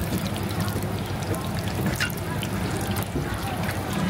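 Meat pies shallow-frying in a pan of hot oil: a steady sizzle with many small crackles, over a low steady hum.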